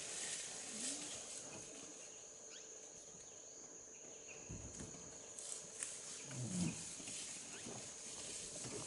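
Sloth bear snuffling as it forages with its snout in dry leaf litter, with a short, louder low sound about six and a half seconds in.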